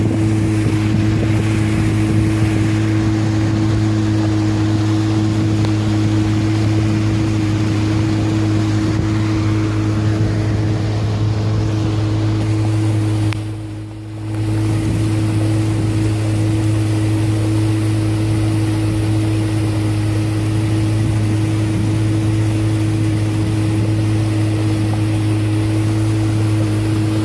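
Pontoon boat's motor running at a steady cruising speed, a constant hum, with the rush of water and wind over it. The sound drops away briefly about halfway through, then returns unchanged.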